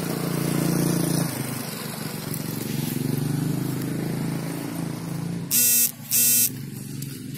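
A motor vehicle engine running with a steady low hum, then a horn beeps twice in quick succession about five and a half seconds in, the loudest sound here.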